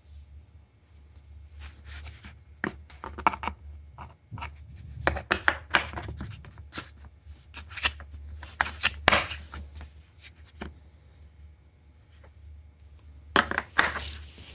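Irregular clicks and clacks of steel impact socket adapters being handled, in scattered clusters with quiet gaps between.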